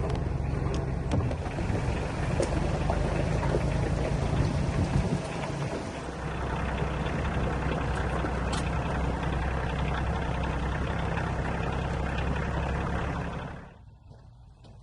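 A vehicle engine running steadily, its note dropping a little about five seconds in, then fading out sharply near the end.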